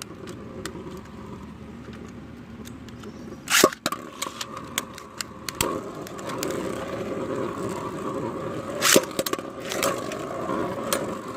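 3D-printed Beyblade spinning tops being launched into a plastic stadium, then spinning and knocking against each other. A steady rattling whir is broken by many small clicks and two sharp clacks, about three and a half and nine seconds in.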